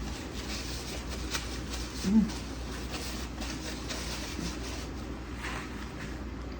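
Quiet chewing and soft mouth sounds of someone eating fast food, with a brief hummed "mm" about two seconds in, over a steady low hum.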